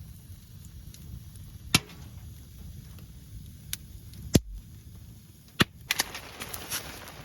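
Five or six sharp cracks at irregular intervals over a low background rumble, the loudest a little past four seconds in.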